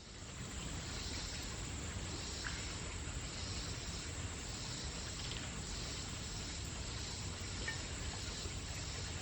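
Insects singing in chorus: a steady hiss with a high buzz that swells and fades rhythmically, a little more than once a second. The sound fades in at the start.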